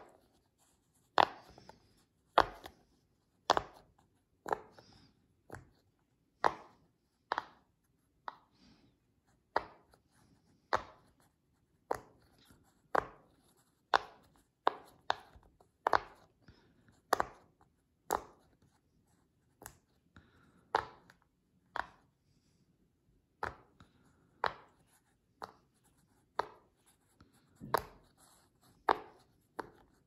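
Silicone bubbles of a pop it fidget toy pressed in one at a time with a fingertip, each giving a short, sharp pop, about one a second.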